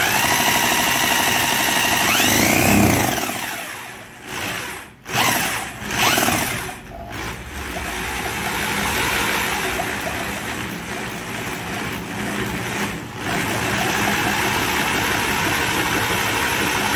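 Electric drill spinning a Yamaha Jog scooter's magneto flywheel through a socket on its nut, driving the ignition coil for a voltage test. The drill's pitch rises then falls about two seconds in, it stops and restarts a few times between about four and seven seconds in, then runs steadily.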